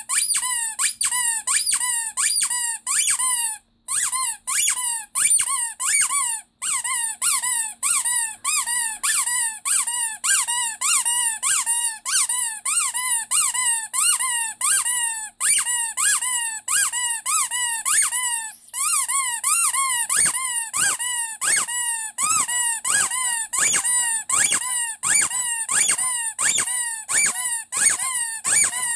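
Rubber squeaky toy, a Ledraplastic Pinocchio figure, squeezed over and over, about two high-pitched squeaks a second, with two short pauses early on.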